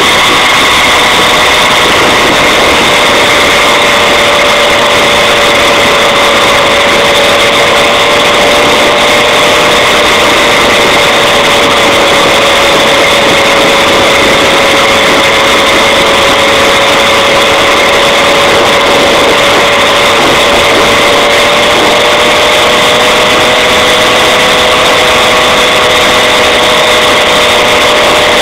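70cc Black Stallion two-stroke bicycle engine running at a steady cruising speed, its pitch holding nearly constant with only a slight drift.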